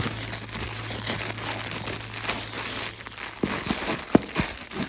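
Crinkle lining of a fabric kettlebell-shaped dog toy crinkling steadily as a dog plays with it, with a few sharp taps and knocks in the last second and a half.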